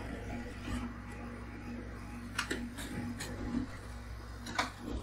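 Metal scraper scraping leftover frozen cola ice cream off a chilled steel ice-cream plate: a few short, sharp scrapes and clicks, bunched in the middle and again near the end, over a steady low hum.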